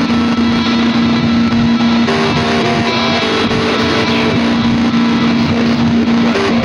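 Rock music with guitar, with long held notes running under it and no singing.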